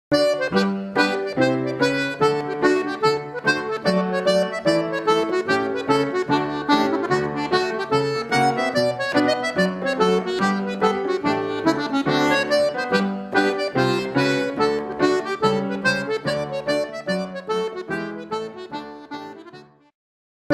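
Lively Irish dance tune played on a free-reed instrument, with quick, evenly spaced notes and a strong regular beat, fading out near the end.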